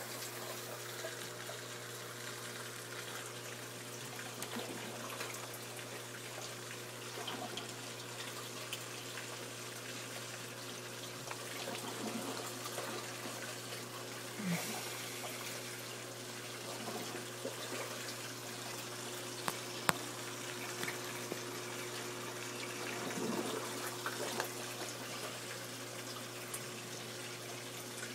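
Saltwater aquarium filtration running: a steady rush of flowing, trickling water over a constant low pump hum. A few brief knocks, the sharpest about two-thirds of the way through.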